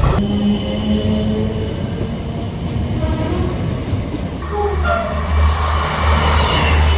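A train sounding its horn. A steady horn note comes in at the start and holds for about a second and a half, with fainter tones after it. From about halfway a low engine rumble builds under short falling tones.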